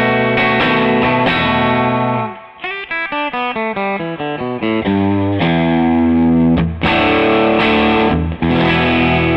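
Electric guitar on its bridge pickup played through a Mesa Boogie Blue Angel 1x12 tube combo loaded with a Fender 12-inch Special Design Eminence speaker, close-miked at the grille. The riff goes from strummed chords into a fast run of single picked notes about two and a half seconds in, then back to held, ringing chords.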